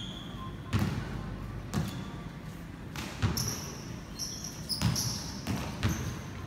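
Basketball bouncing on a court: about seven irregular thuds, with short high squeaks in between.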